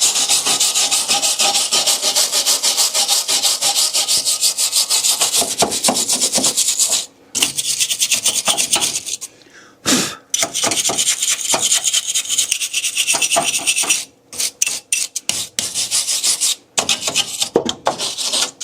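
A hand brush scrubbing grime off a truck's engine bay in fast back-and-forth strokes. The strokes come in long runs with a couple of brief pauses and turn choppier near the end. The surface is being scrubbed dry, before any degreaser is applied.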